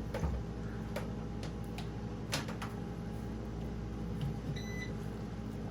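A brand new air fryer's control panel giving a short electronic beep near the end, after a few sharp clicks and knocks of handling it. A steady hum runs underneath.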